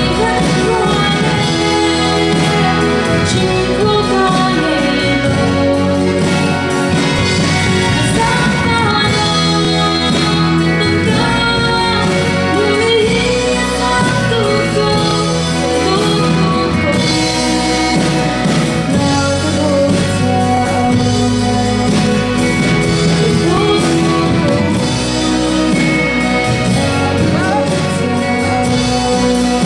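A young woman singing a solo into a handheld microphone over instrumental accompaniment.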